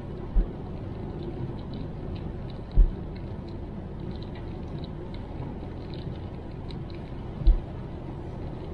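Steady road and engine rumble inside a car's cabin, with tyres running on a wet road in rain and scattered light ticks of raindrops. A few short low thumps break through, the strongest about three seconds in and near the end.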